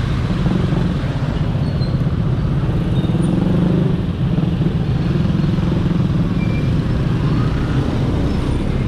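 Motorcycle engine running at low speed, heard from the rider's seat, mixed with the engines of the surrounding motorcycles, tricycles and cars in slow traffic.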